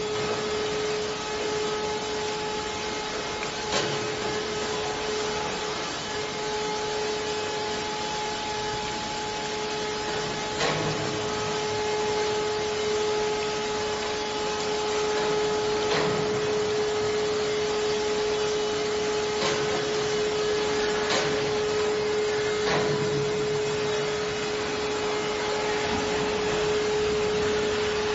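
Induction melting furnaces running, giving a steady high hum over a constant hiss, with a few sharp knocks scattered through.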